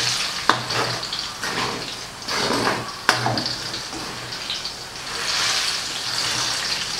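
Chicken skin, chicken fat and garlic sizzling in hot oil in a wok while a metal ladle stirs them, as garlic is fried into rendered chicken fat to make chicken oil. The sizzle swells and fades with the stirring, with a few sharp clicks of the ladle against the wok.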